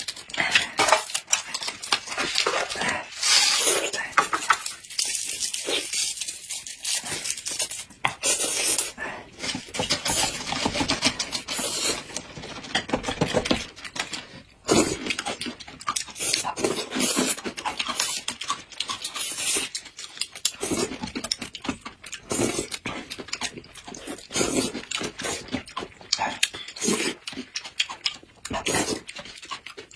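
Close-up eating sounds: chewing and slurping of noodles and spooned yogurt, with irregular clicks of chopsticks on a plate and a spoon in a plastic cup.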